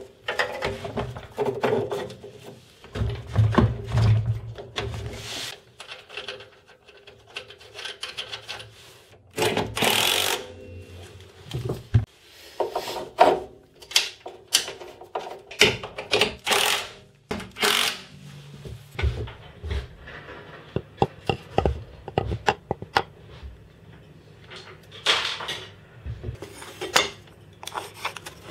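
Irregular knocks, scrapes and clicks of hands and a small tool working on a wooden table saw stand and the metal base of the saw sitting on it, as the saw is fitted and fastened in place.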